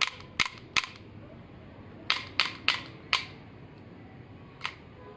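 Sharp mechanical clicks from a shell-ejecting toy M18 pistol being worked by hand: three quick clicks at the start, four more about two seconds in, and a faint one near the end.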